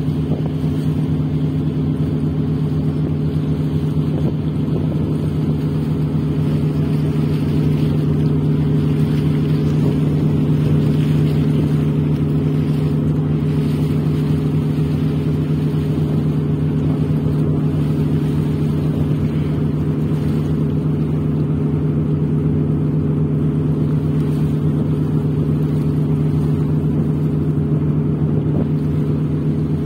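A boat's engine running at an even, steady drone, a low hum that holds the same pitch throughout while the boat moves across open water.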